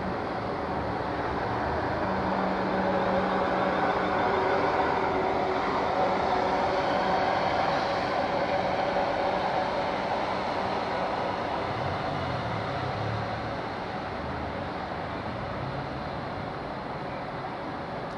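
Siemens Desiro Class 444 electric multiple unit moving slowly past: the steady whine of its traction equipment over wheel-on-rail rumble. The sound swells over the first few seconds and fades gradually as the train draws away.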